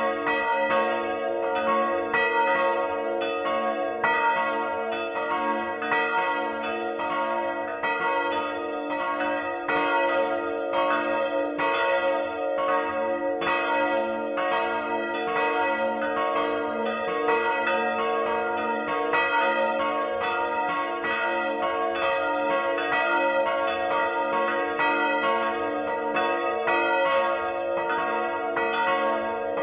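Swinging church bells, the peal of three (two cast by Rincker in 1952 tuned to a' and one cast by Johann Peter Bach in 1759 tuned to c-sharp''), ringing together close up in the belfry. The clappers strike a few times a second in an irregular, overlapping succession over a steady wash of ringing tones.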